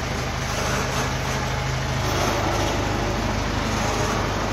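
Diesel engine of a wheeled mobile crane running steadily as the crane carries a suspended load.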